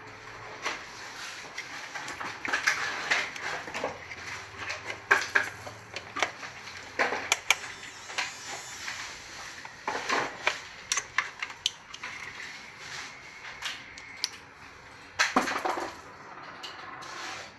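Clicks, knocks and light plastic-and-metal clatter from a 12V mini electric grinder pen and its plug-in adapter being handled and connected, with a cluster of sharper clicks near the end as a bit is tightened in the pen's brass collet with a metal pin.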